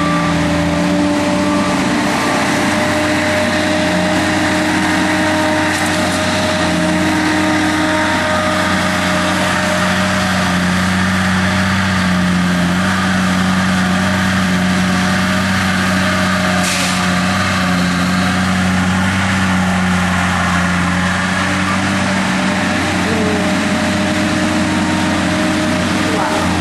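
Heavy machinery engine running steadily at a fairly constant pitch, with small shifts in tone and a few brief high hissing sounds.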